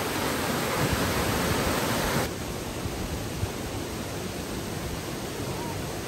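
Mountain stream water running, a steady rush that drops abruptly to a softer level about two seconds in.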